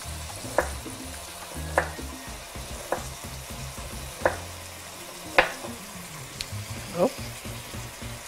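Sausage, guanciale and red onion sizzling steadily in a frying pan. Over it a knife knocks on a wooden cutting board about six times, slowly and unevenly, as a red onion is sliced.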